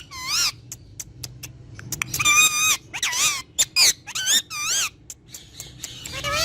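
Ringneck parrot calling: a string of short, high, wavering squawks and chirps with sharp clicks between them.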